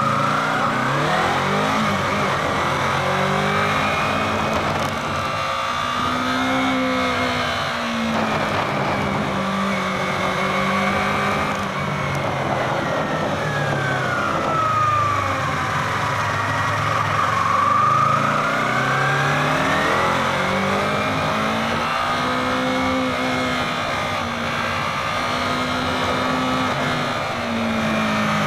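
A 2016 Yamaha R3's parallel-twin engine running as the bike is ridden, its pitch rising and falling several times as the rider speeds up and slows, with a steady rush of wind noise.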